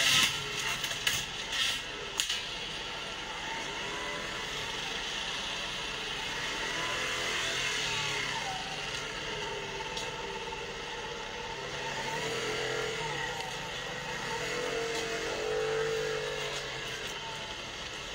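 Steady street and traffic noise, swelling as vehicles pass, with a few sharp knocks in the first two seconds.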